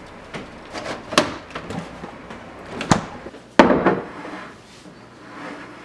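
Sharp knocks and thumps of a glass pickle jar being handled and set down on a kitchen countertop. There are about five, the loudest about three and a half seconds in.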